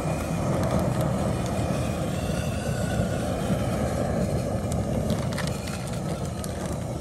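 Propane jet burner under a large seafood boil pot, running with a steady rushing noise.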